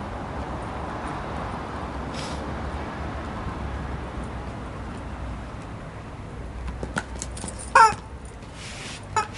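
Yellow rubber chicken squeaky toy squawking as a dog bites and squeezes it: two short squawks near the end, the first the loudest, over steady background noise.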